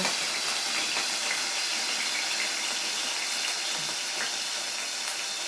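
Chicken pieces searing in a pan of olive oil and regular oil, a steady sizzle with scattered small pops. The oil is too hot.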